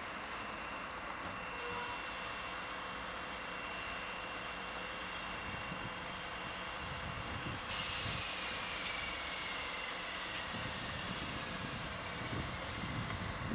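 SNCF Z 7300 (Z2) electric multiple unit running slowly with a steady electrical whine. About eight seconds in, a hiss starts abruptly and a thin whine slowly falls in pitch.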